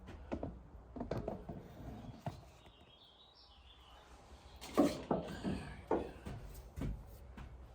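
Scattered metal clinks and knocks of tools and parts being handled while working on a sawmill's clutch and belt drive, the loudest a few clanks about five to seven seconds in. A faint bird chirp is heard about three seconds in.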